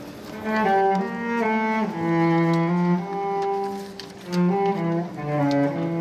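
Cello played with the bow: a slow melody of held notes, each lasting about half a second to a second, with a brief lull about four seconds in.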